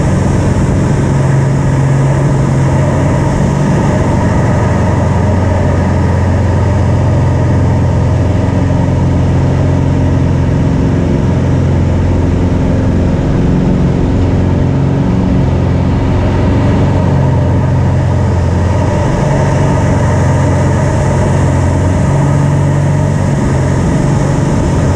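RV-6 light aircraft's piston engine and propeller, heard from inside the cockpit, running steadily during formation aerobatics. The engine note shifts a little about two-thirds of the way through, then settles back.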